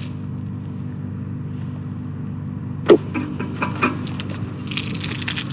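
Drinking fountain turned on: a click about three seconds in as the tap is worked, then water jetting out and spattering with a dense hiss from just before five seconds. Under it all runs a steady low hum.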